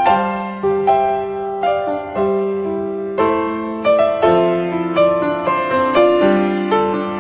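Background piano music: a gentle melody of struck notes over changing chords, a new note or chord about every half second to second.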